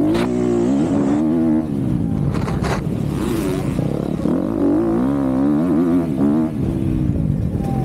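Onboard sound of an MX2 motocross bike's engine racing round the track, its pitch rising and dropping again and again as the rider opens and shuts the throttle, with a few sharp knocks from the bike.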